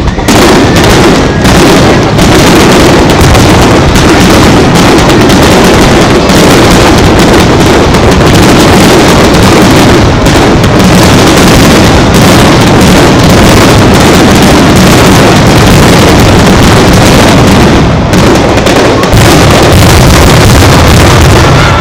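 Aerial firework shells bursting in a rapid, unbroken barrage, very loud, the bangs running together into a continuous crackling rumble. There is a brief lull about eighteen seconds in.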